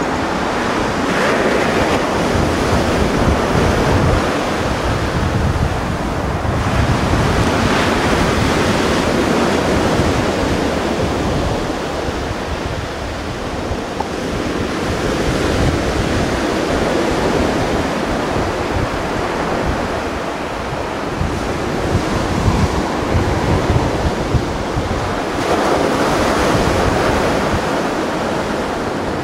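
Sea waves breaking and washing in, rising and falling in slow surges every few seconds, with wind rumbling on the microphone.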